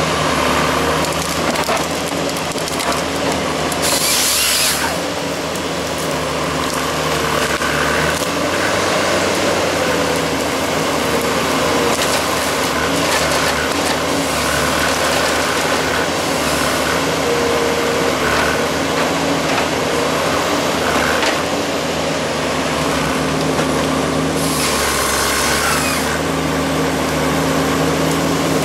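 Valmet 911.3 harvester running steadily, its engine and hydraulics whining, while the SP 561 LF harvester head fells and handles trees. The head's chain saw cuts through a stem twice, briefly about four seconds in and again near the end, and wood and branches crack as a tree comes down.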